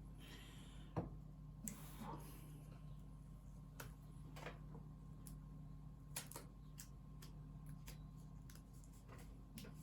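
Faint scattered clicks and light taps of small hand tools and parts being handled on an opened laptop, with one sharper click about a second in, over a faint steady hum.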